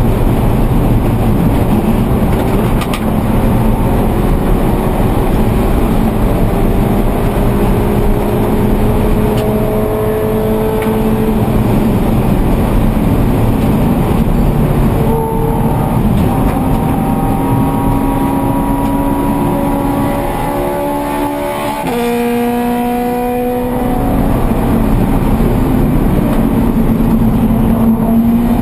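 Scion FR-S race car's 2.0-litre flat-four engine at racing speed, heard from inside the cabin, pulling hard with the pitch rising slowly. About three quarters of the way through, the engine eases off and the pitch drops, then it pulls and climbs again.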